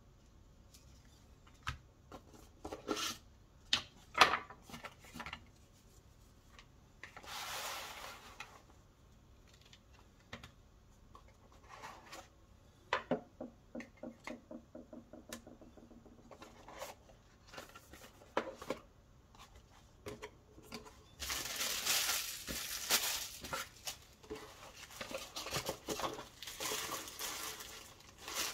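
Unboxing handling sounds of a DJI Osmo Mobile 5 phone gimbal and its cardboard box: scattered clicks and knocks of plastic parts set down on a wooden desk, a quick run of ticks about halfway through, then dense rustling and scraping of cardboard packaging near the end.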